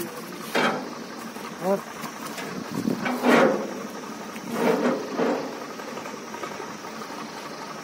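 Men straining as they lever a heavy log onto a tractor trolley with an iron bar: five short bursts of calls and grunts, the loudest about three seconds in. A tractor engine idles steadily underneath.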